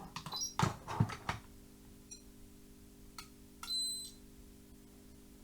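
A few sharp clicks and knocks from handling the test leads and capacitor, then a single short high-pitched beep from an ESR70 Gold capacitor meter a little past halfway, as it finishes measuring a mains capacitor.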